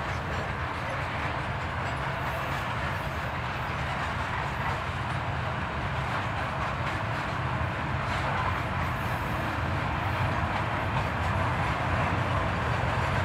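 Freight train wagons rolling past on the rails: a steady rumble and wheel noise that grows a little louder toward the end as a mid-train diesel locomotive draws near.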